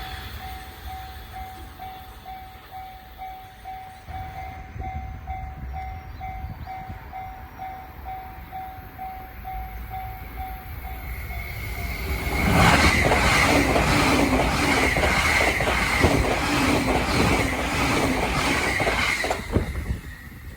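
Japanese level-crossing warning bell ringing, a steady electronic ding about twice a second, then a train passes at high speed about twelve seconds in, loud for some seven seconds, with a run of wheel clacks over the rails.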